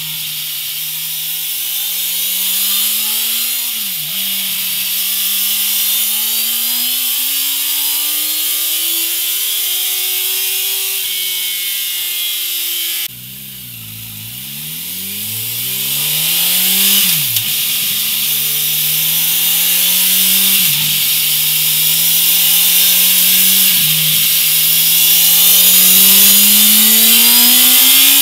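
Honda CB1000R's inline-four engine revved in quick blips and slow climbs, heard first through the stock exhaust. After a cut about 13 seconds in, it is heard through a MIVV Delta Race silencer, with several sharp blips and a long rise in revs near the end.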